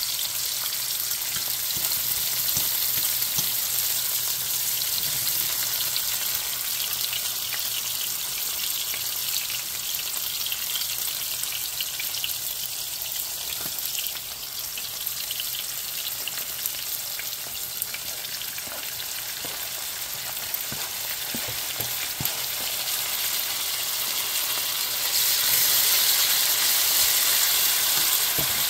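Sliced onions and bell peppers sizzling in a hot skillet, a steady frying hiss. Near the end the sizzle grows louder as diced tomatoes are scraped into the pan, with a few light clinks of a fork.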